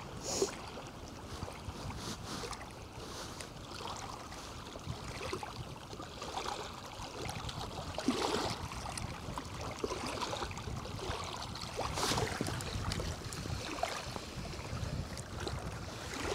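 Wind and small waves lapping at the shore of a reservoir, a steady rushing wash with a few brief louder gusts.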